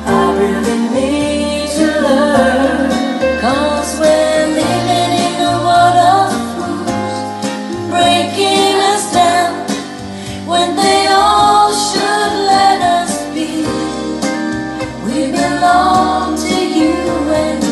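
A song with singing and guitar playing back through a pair of bookshelf loudspeakers, driven by a home-built class A Pass Aleph 5 clone power amplifier under test.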